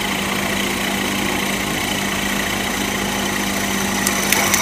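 Webb milling machine's VFD-driven spindle running steadily with a large drill bit just through a piece of pine, a steady hum with a low tone. A few short clicks and a brief scrape near the end.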